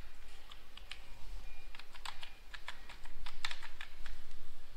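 Computer keyboard keys tapped in irregular short runs as a word is typed into a text editor.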